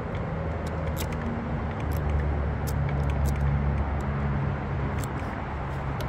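A few faint, sharp clicks as the combination thumbwheels of a Yardlock gate lock are turned, over a steady low engine-like hum.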